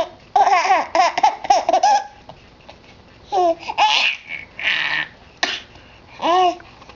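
Baby laughing: a run of quick high-pitched giggles for about a second and a half, then a few breathy laughs, and a short squealing laugh near the end.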